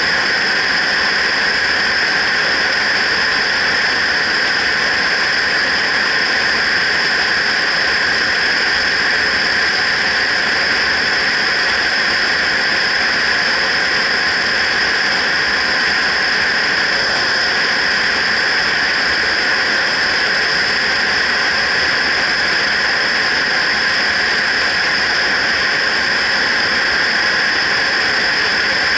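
Steady rushing wind noise on a helmet-mounted action camera on a motorcycle at road speed, with a constant high hiss-like whistle over it.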